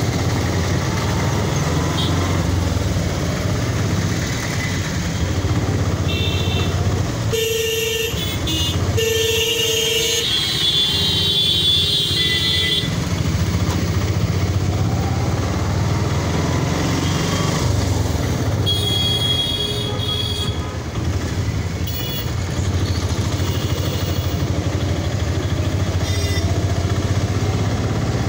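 Busy road traffic heard from a moving two-wheeler: a steady engine and road rumble, with vehicle horns honking repeatedly in short blasts and one held for about two seconds.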